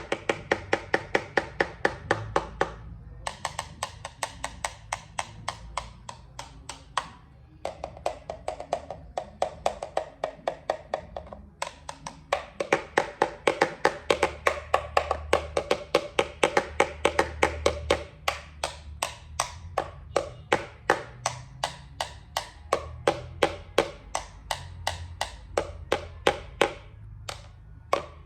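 A run of quick, even taps, about three to four a second, each with a short pitched ring, stopping briefly a few times.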